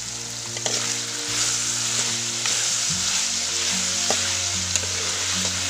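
Pork ribs and lemongrass sizzling in hot oil in a metal wok while a spatula stirs them, scraping and clicking against the pan a few times.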